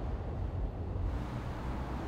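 Low, steady rumble of a train on the elevated railway overhead as it moves off.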